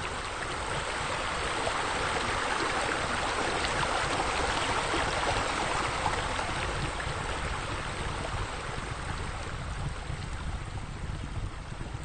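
Water splashing from a tiled wall fountain's spouts into its basin, swelling to its loudest in the middle and easing off toward the end, over a steady low rumble.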